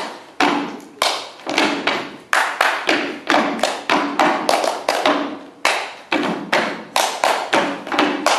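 Two performers playing body percussion: hand claps, slaps on the body and foot stomps on a wooden stage, locked into a quick, even rhythm of a few hits a second. Each hit rings on briefly in the hall.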